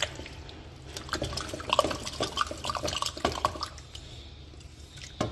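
Wet liquid sounds with a quick run of clicks and clinks, as a spoon works in a pot of freshly cooked dal; it goes quieter after about four seconds, with one sharp knock near the end.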